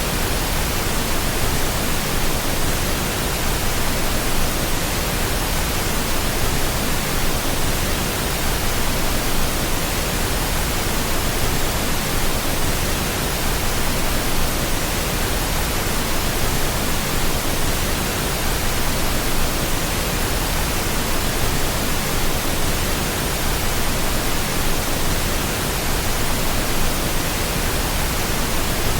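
Steady, unbroken pink noise: an even hiss with a fuller low end, played as a sleep sound for calming a baby.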